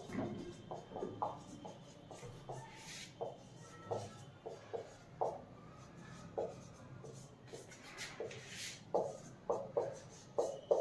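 Marker pen writing on a whiteboard: a quick, irregular series of short squeaks and rubs from the felt tip as each stroke of the letters is drawn.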